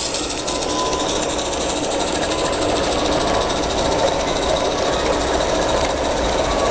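16mm-scale live steam garden locomotive running with a train of hopper wagons: a steady hiss of steam with a rapid, fine ticking.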